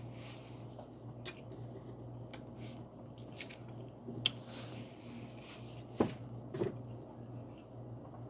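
A person chewing food close to the microphone: soft wet mouth sounds with scattered small clicks, two sharper ones about four and six seconds in, over a steady low hum.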